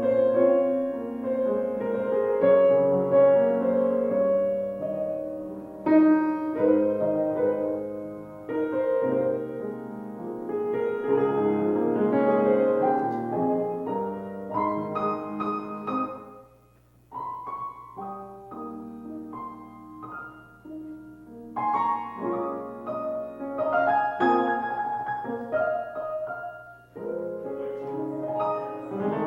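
Piano music: chords and melody played on a piano, with a brief near-pause a little past halfway before the playing resumes.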